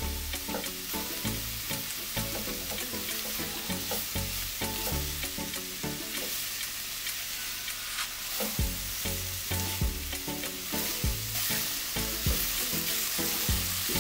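Sliced bitter melon and onion sizzling in hot oil in a nonstick pan, stirred and turned with a silicone spatula in frequent short strokes.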